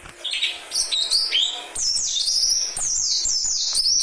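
Bird calling: a rapid run of high, thin chirps, many of them sliding down in pitch, coming thick and almost continuous from about two seconds in.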